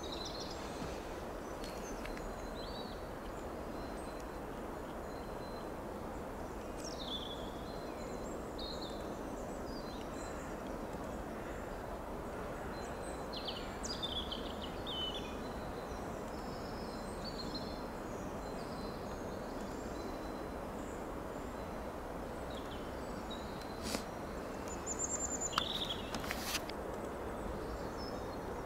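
Small birds chirping now and then over a steady outdoor hiss, with two sharp clicks near the end.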